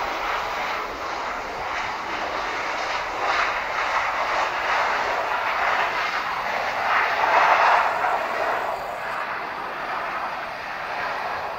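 Boeing 737 jet engines on the landing rollout, spoilers up: a steady loud jet rush that swells to its peak about two-thirds of the way through and then eases off.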